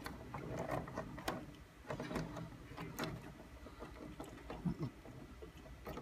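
Faint scattered clicks and rustles of insulated wires being pulled apart and moved against one another and the metal chassis inside a microwave oven.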